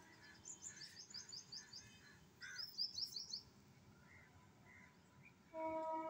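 A small bird chirping: two quick runs of high, falling chirps in the first half. Near the end a steady humming tone starts up.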